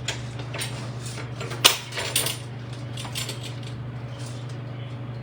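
Metal fork and knife clinking and scraping against a baking dish while lifting out a piece of baked chicken, with a sharp clink about one and a half seconds in and a few lighter ones after.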